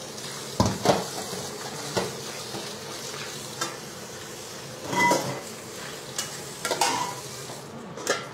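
Kitchen clatter: scattered knocks and clanks of metal cookware being handled, a wok among them, over a steady faint hiss.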